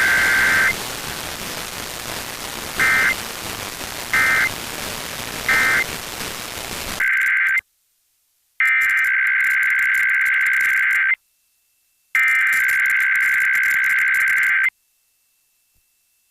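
Emergency Alert System SAME data bursts: shrill warbling digital tones. Over radio static there is one burst of about a second, then three short blips about a second and a half apart, typical of an end-of-message code. About seven seconds in, the static cuts off and a new alert's header plays cleanly as two long bursts of about two and a half seconds, a second apart, then silence.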